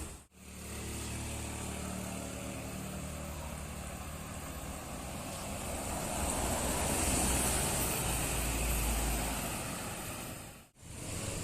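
Tour bus's diesel engine running and passing by, with a steady low hum that swells to its loudest around seven to nine seconds in.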